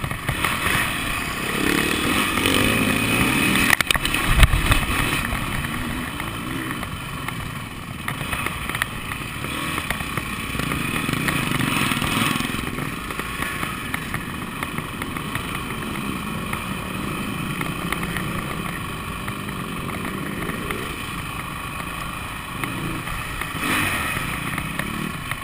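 Motocross motorcycle engine revving up and down as the bike is ridden around a dirt track, its pitch rising and falling with the throttle. A sharp thump comes about four seconds in.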